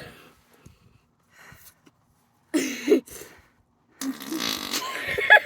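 Two made-up fart noises: a short one about two and a half seconds in, then a longer one from about four seconds until near the end.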